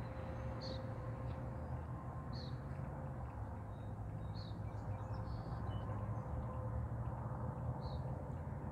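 Outdoor ambience: a bird's short, high chirps, repeating every couple of seconds over a steady low rumble.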